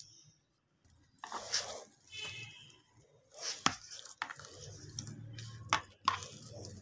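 Hands mixing and squeezing flour and gram-flour dough mix in a plastic bowl, with soft rubbing and squishing sounds and a few sharp clicks against the bowl.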